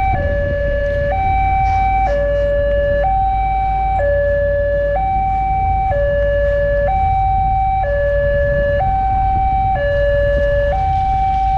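Railway level-crossing warning alarm sounding a steady two-tone signal, a higher and a lower tone alternating about once a second, warning that a train is approaching. A steady low rumble runs underneath.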